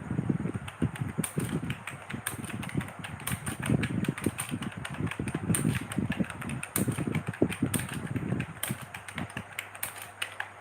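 Rapid, irregular clicking of keys being typed on a computer keyboard, several keystrokes a second without pause.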